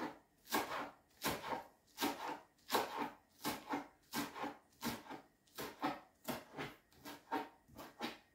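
Kitchen knife chopping spring onions and herbs on a plastic cutting board, in a steady run of sharp strokes about every two-thirds of a second.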